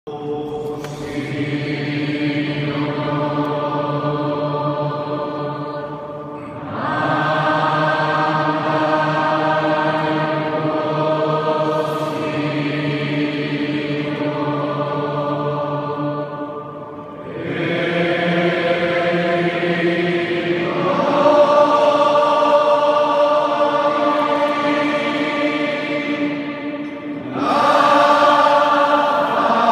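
Voices singing slow, sustained chords, each held for several seconds before moving to the next, with long reverberation in a large stone church.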